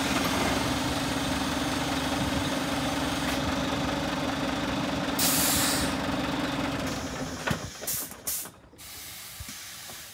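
Scania G440 truck's 13-litre inline-six diesel idling steadily, with a loud burst of compressed-air hiss from the air system about five seconds in. The engine stops about seven and a half seconds in, followed by a few clicks and a fainter hiss.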